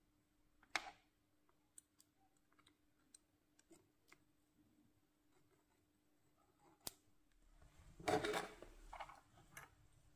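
Small clicks and taps from hand tools being handled, over a faint steady hum. There is a sharp click about a second in and a louder, short scrape of handling noise near the end.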